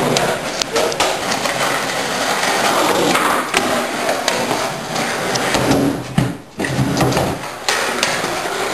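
Skateboard wheels rolling on a concrete garage floor, with scattered sharp clacks and knocks of the board.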